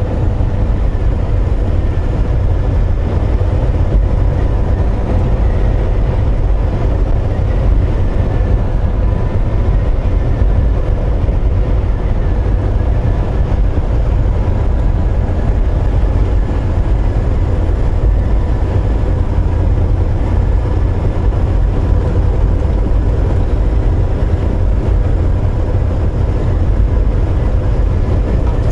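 Volvo VNL860 semi truck driving at cruising speed, heard inside the cab: a steady low engine drone with road noise and a faint steady hum.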